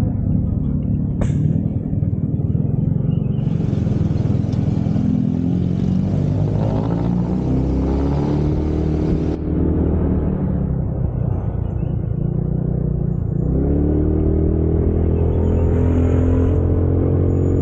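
Yamaha Mio automatic scooter's single-cylinder engine running on the move, with a steady low drone. From about three-quarters of the way through, the engine note rises smoothly as the scooter accelerates.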